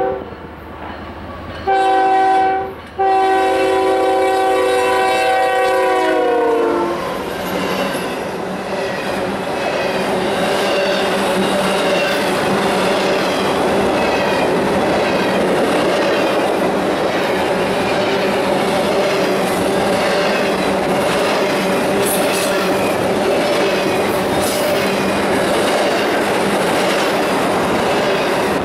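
Union Pacific freight locomotive air horn finishing a grade-crossing signal: a blast ending at the start, a short blast, then a long blast whose pitch drops as the lead locomotive passes. Then the double-stack container cars roll by with a steady loud rumble and the clickety-clack of wheels over rail joints.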